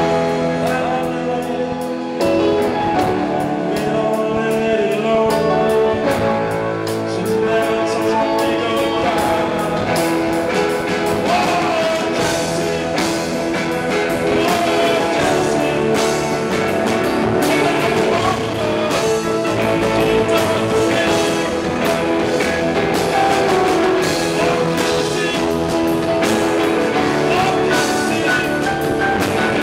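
Rock-style music with guitar, loud and continuous, with percussive hits that grow more frequent after about ten seconds.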